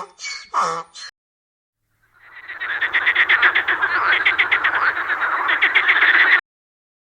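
Frogs croaking in a dense chorus of rapid pulsed calls that swells in and then cuts off suddenly.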